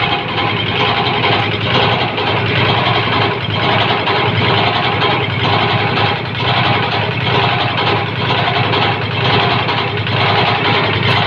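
Kubota diesel engine running steadily on a newly built grass chopper after its tune-up.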